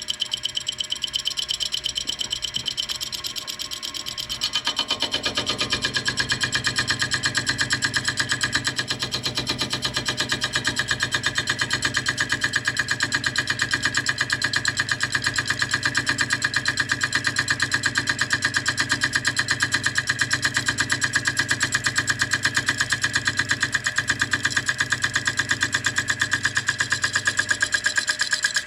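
Milling machine driving a worn slitting saw, several teeth broken off, through aluminum: a steady, rhythmic cutting noise that grows louder and fuller about five seconds in.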